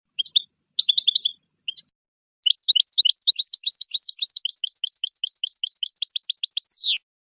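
European goldfinch singing: a few short twittering phrases, then from about two and a half seconds in a long, fast run of repeated high notes that ends in one downward-sliding note.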